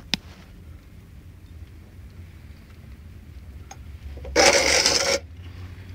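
Gear oil draining from a differential's drain hole into a catch jar and metal bucket, with a click near the start and a loud, rushing splash lasting under a second about four and a half seconds in.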